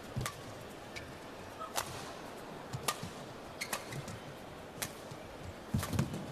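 Badminton rally: sharp cracks of rackets striking the shuttlecock, roughly once a second, with low thuds of footwork on the court over a steady hall background.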